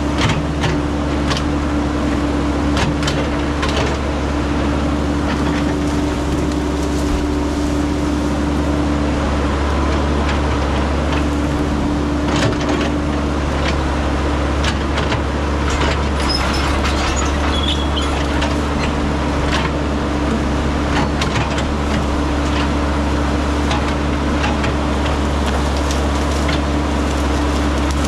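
Caterpillar 312 hydraulic excavator's diesel engine running steadily under load while its bucket pushes through dense brush, with frequent sharp cracks and snaps of branches breaking.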